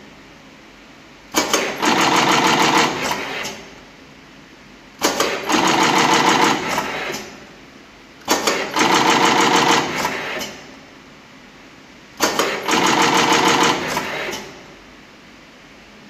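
Semi-automatic flat cable crimping machine running four work cycles. Each cycle opens with a sharp clack and goes on as about two seconds of fast mechanical rattling, with a much quieter steady machine noise in the gaps between cycles.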